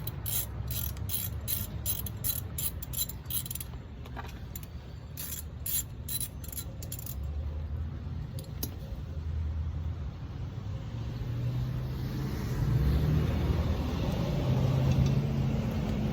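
Quick metallic clicking of hand tools working on the brake caliper, several clicks a second, which stops about seven seconds in. A low vehicle rumble runs underneath and grows louder in the second half.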